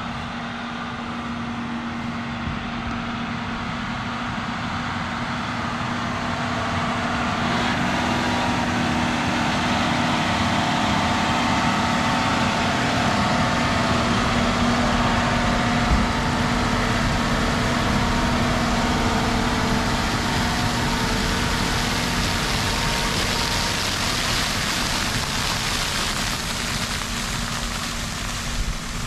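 John Deere tractor pulling a liquid manure tanker, its engine running steadily; the sound grows louder as the tractor comes close about halfway through, then eases off near the end as it moves away.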